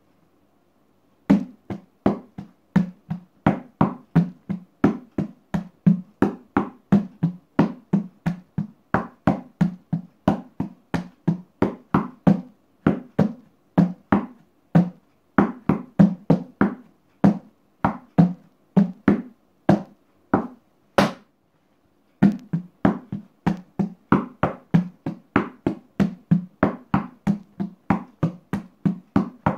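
Hand drumming on an upturned plastic bucket played like a conga: a steady run of sharp hand strokes in the tumbao rhythm, starting about a second in. A different rhythm follows, then the strokes break off briefly about two-thirds of the way through before the tumbao comes back.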